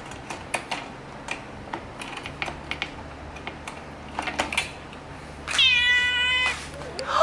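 Wire door of a plastic pet carrier clicking and rattling as hands work at its fastenings. Near the end a Bengal kitten inside meows loudly, one steady call about a second long, and starts another meow just at the close.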